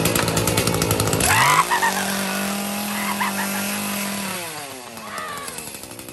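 Chainsaw revving: rough and loud at first, then rising to a steady high pitch, and winding down over the last couple of seconds.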